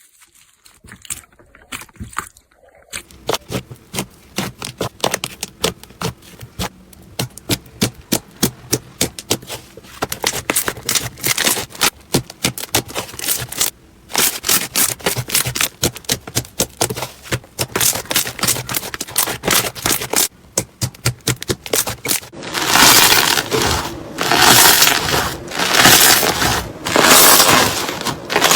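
Crunchy slime being pressed and worked by hand, giving a dense run of small crackling pops. Near the end it changes to louder crunching squeezes about once a second.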